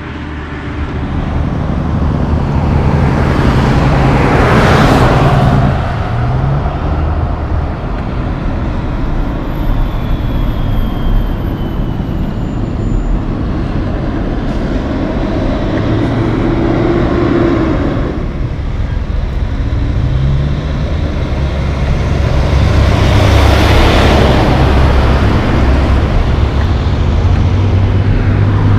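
Road traffic passing: semi-truck diesel engines drone over tyre and road noise, and twice a vehicle passes close with a swell of tyre noise.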